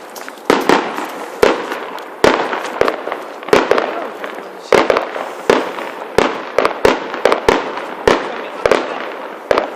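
Fireworks exploding: an irregular run of sharp bangs, a dozen or more, each trailing off in a rolling echo.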